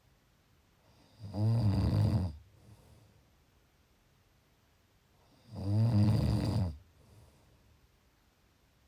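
A person snoring: two snores, each about a second long and about four seconds apart, each followed by a faint out-breath.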